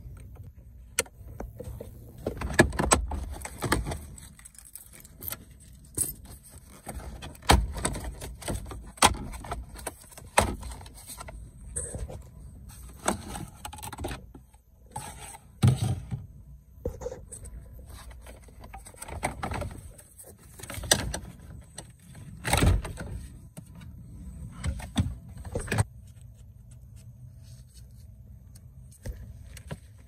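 Irregular clicks, knocks and rattles of hand tools, screws and plastic trim panels being handled while a car's dashboard and steering-column covers are taken apart, with a few louder knocks among many small ones.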